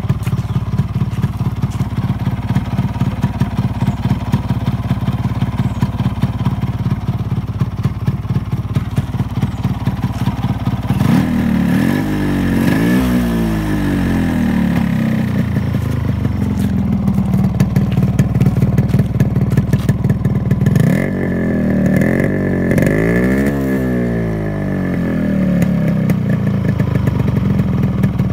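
Yamaha RX135's two-stroke single-cylinder engine running at a steady idle, its throttle blipped twice about eleven seconds in and twice again about ten seconds later, the pitch rising and falling back to idle each time.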